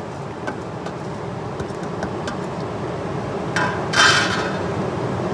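Chopped onion, chilli and herbs being scraped off a steel plate into a plastic bowl and mixed by hand, with light clicks of the plate and a louder short rustling scrape about four seconds in.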